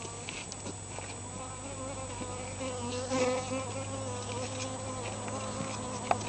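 A flying insect buzzing, its hum wavering up and down in pitch, over a steady low hum, with a light click near the end.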